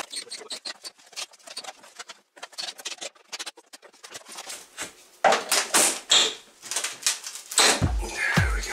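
Wooden window trim being worked loose and pulled off the frame: a run of faint small clicks and creaks, then louder scraping and cracking as the strip comes away. Background music with a steady beat comes in near the end.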